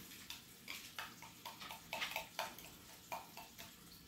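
Faint wet eating sounds of a person spooning and chewing canned baked beans: a string of short, irregular clicks and smacks, thicker through the first two and a half seconds.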